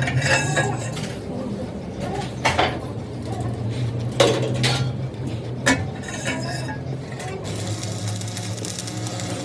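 Metal objects clinking and knocking together, with sharper knocks about two and a half, four and five and a half seconds in, over a steady low hum.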